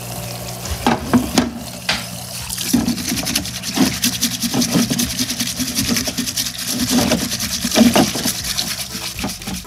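Parts washer running, its solvent pouring and splashing over steel scroll-chuck parts as they are degreased. Frequent sharp clicks and knocks of the metal parts being handled, over a steady low hum.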